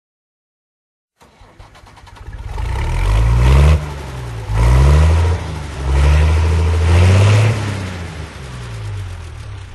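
An engine revving up and down over and over, its pitch climbing and dropping about four times. It starts suddenly about a second in.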